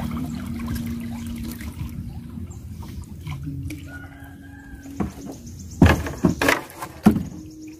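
A wooden paddle working a small wooden boat through river water, with three sharp knocks about six to seven seconds in. Under it runs a long, steady pitched call in the background.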